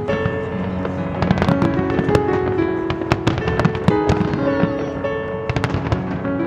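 Fireworks going off in rapid, irregular bangs over music with long held notes.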